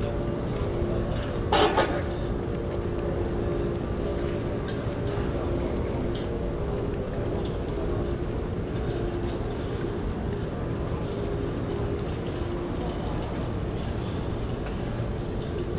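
Street ambience dominated by a vehicle's steady motor hum, which fades out near the end, with one short loud burst about a second and a half in.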